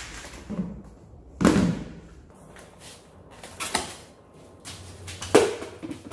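Knobby rubber off-road tires on metal rims handled and set down on a tiled floor: a few dull thuds, the loudest about a second and a half in and again near the end.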